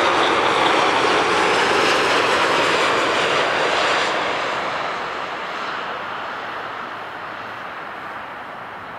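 Boeing 787-8 Dreamliner's jet engines on final approach: a loud, steady roar with a faint high whine as the airliner passes close overhead, then fading away steadily from about four seconds in as it descends toward the runway.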